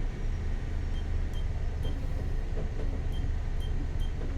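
Motor vessel's diesel engine running steadily under way, a low drone, with faint short high blips repeating about twice a second.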